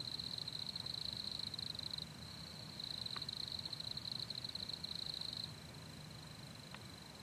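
Insects trilling: a high, steady, finely pulsing trill in two long, loud bouts, dropping to a fainter trill about five and a half seconds in.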